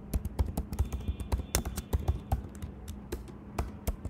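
Computer keyboard typing: irregular runs of quick key clicks as a line of code is typed.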